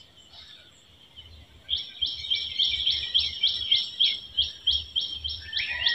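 A bird calling a fast run of short, high notes, each sweeping down in pitch, repeated about three or four times a second, starting a little under two seconds in. A second, lower and steadier call joins near the end.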